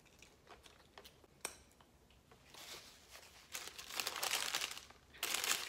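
Paper napkin crinkling and rustling as it is handled and wiped over the hands. A few light taps come first, and the crinkling starts about halfway through, getting louder toward the end.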